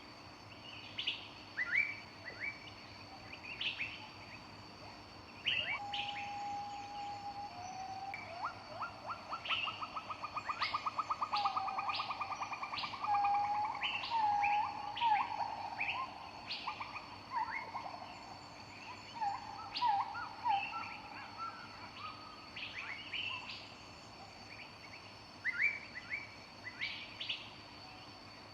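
Several songbirds singing: short high chirps scattered throughout, with a fast rattling trill and a run of lower whistled notes in the middle.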